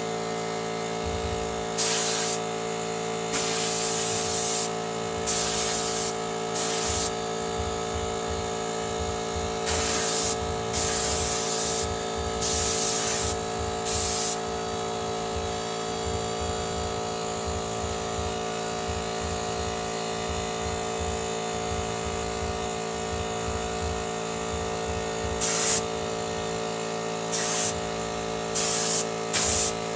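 Motomil 24-litre air compressor running with a steady hum. Short bursts of compressed air hiss out over it again and again, a cluster in the first half and another near the end.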